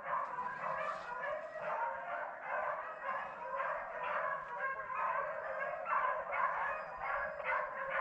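A pack of rabbit-hunting dogs baying together in full chase, many overlapping barks and yips without a break: the sign that they are on a running rabbit's scent trail.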